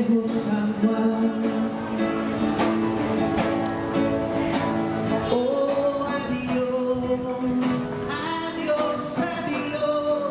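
Music with singing, a plucked guitar and a steady beat.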